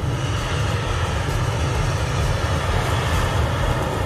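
Jet engines of an AirAsia Airbus A320 on its landing roll: a steady rumble and rush of noise.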